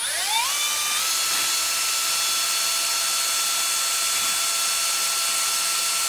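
Cordless Milwaukee M12 drill spinning a carburetor insulator on a mandrel against 180-grit sandpaper. The motor whine rises over about the first second as the drill comes up to speed, then holds steady over the hiss of the sanding. The insulator is being turned down to fit the carburetor.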